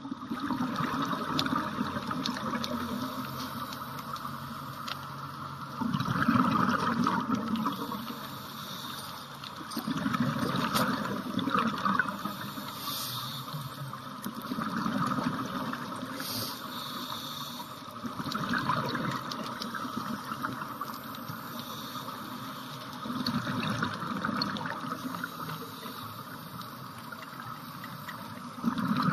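Scuba regulator breathing heard underwater: a gush of exhaled bubbles about every four to five seconds over a steady hiss.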